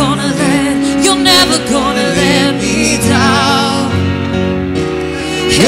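Live worship band music: a violin playing with vibrato over guitar and sustained chords, with voices joining in.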